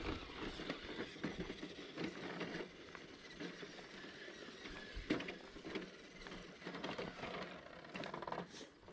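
Element RC Enduro Trail Walker crawler's electric drivetrain, with gears whirring and clicking, as the small truck crawls over dirt and roots, with irregular scrapes and crunches from its tyres on the ground. A sharper knock comes about five seconds in.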